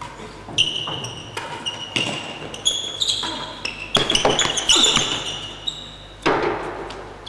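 Real tennis rally in an echoing indoor court: shoes squeaking on the court floor, and the hard ball being struck by rackets and thudding off the walls and floor. A louder, noisier thump comes about six seconds in.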